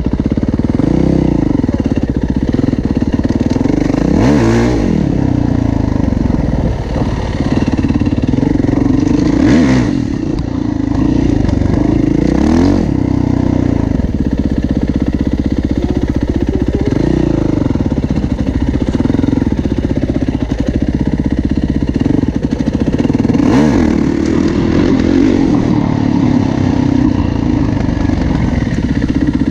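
Yamaha WR450F single-cylinder four-stroke dirt bike engine running while riding, its revs dipping and climbing back several times as the throttle is rolled off and opened again.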